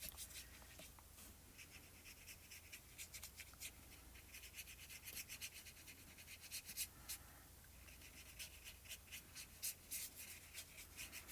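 Faint, quick scratching strokes of a watercolour brush tip rubbing across card stock, saturating the paper.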